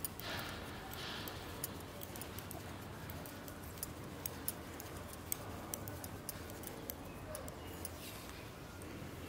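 Knitting needles clicking lightly and irregularly against each other as a row of purl stitches is worked, over a faint low hum.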